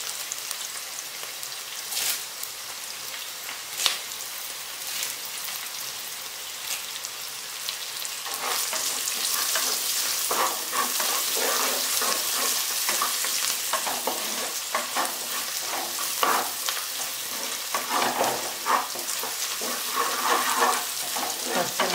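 Chopped onions and green chillies sizzling in hot oil in a black pot, stirred with a wooden spatula that knocks and scrapes against the pot. About eight seconds in the sizzling grows louder and busier as curry leaves go into the oil.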